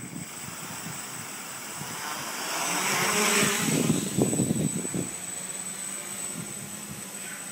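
Home-built quadcopter's four electric motors and propellers running with a steady high whine. The rotor rush swells to its loudest about three to four seconds in as the drone lifts off and passes close, with gusty rumbles of prop wash on the microphone, then settles to a steadier hum.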